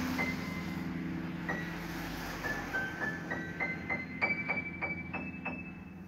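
Background piano music: a series of struck high notes over a held low chord, the notes climbing in pitch through the second half.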